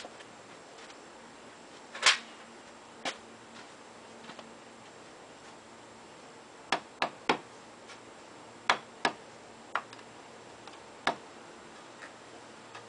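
Hand hammer tapping a strip of aluminium trailer skin into place: about ten sharp, short taps at uneven spacing. The loudest comes about two seconds in, and several come in quick pairs and a triple through the middle.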